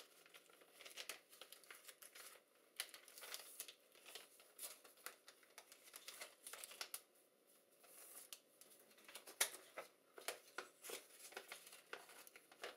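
Notebook paper rustling and crinkling as a sheet is handled and folded by hand: quiet, irregular crackles with one sharper one about three-quarters of the way through.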